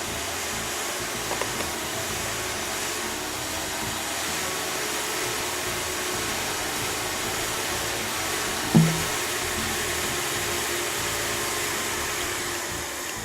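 Steady loud rushing of air from a pneumatic sand-conveying blower pushing material through its line. One sharp thump about nine seconds in.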